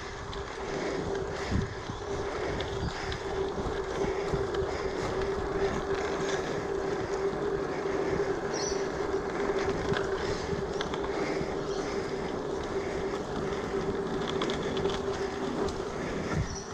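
Giant Fathom mountain bike rolling steadily along a paved cycleway: tyre noise on the path and wind over the microphone, with a steady hum running through it.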